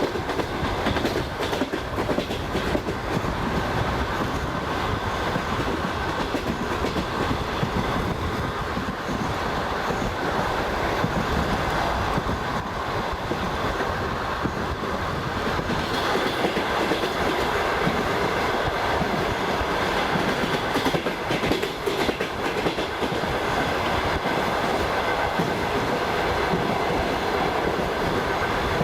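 Passenger train running along the line, heard from a carriage window: a steady rumble of wheels on rails with clickety-clack over the rail joints.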